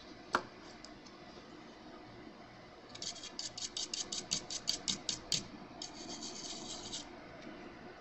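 Small stiff-bristled brush scrubbing a laptop motherboard where the charging jack has been removed: a run of quick scratchy strokes, about seven a second, starting about three seconds in, then a shorter steady scrub. A single click just after the start.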